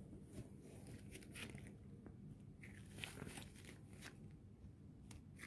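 Faint scattered rustles and small clicks from gloved hands handling a boxed makeup brush set.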